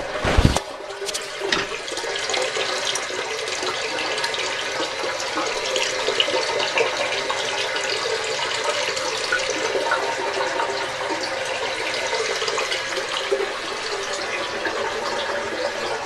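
Toilet tank refilling after a flush, its early-1980s Fluidmaster 400A fill valve running with a steady water hiss and a faint whine. A couple of brief knocks come right at the start.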